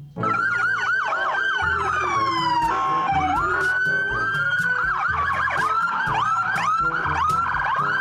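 Toy police car electronic sirens sounding, several at once: overlapping wailing and fast yelping sweeps that start suddenly, over background music with a steady beat.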